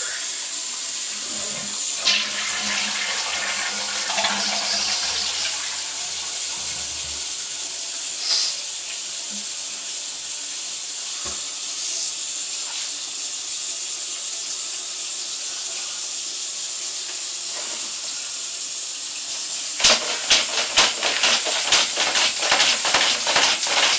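Water running and rushing in a sewer line, a steady watery hiss. About twenty seconds in, a quick run of clicks and knocks starts and goes on.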